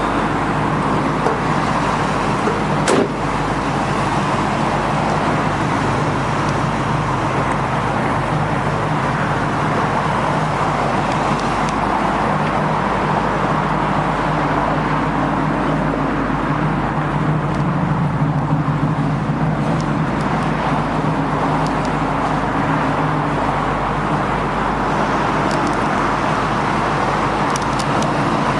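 The 1968 Camaro's 350 four-barrel V8 running steadily through its dual exhaust, with a single click about three seconds in.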